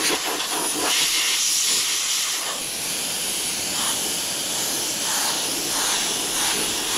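Compressed air hissing steadily from a mini touch-up spray gun, blowing the freshly sprayed silver base coat dry on the wheel's edge.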